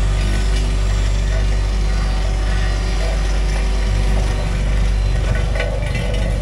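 Diesel engine of a piece of heavy compaction equipment running steadily at a constant speed, with a deep, even hum.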